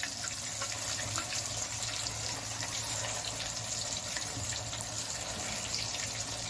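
Marinated chicken pieces deep-frying in hot oil in a steel kadai: a steady sizzle with small scattered pops.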